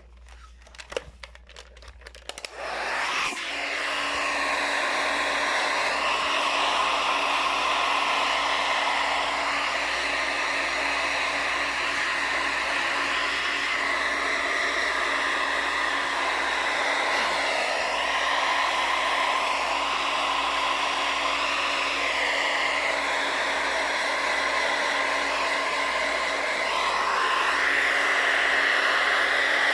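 A few light clicks and knocks, then a hand-held hair dryer switches on about three seconds in and blows steadily, its tone wavering slightly as it runs, drying a dog's coat.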